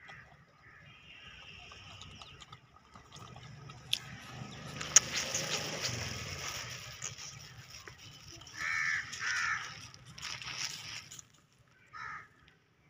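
Short harsh animal calls, two in quick succession about two-thirds of the way through and one more near the end, over a rustling noise.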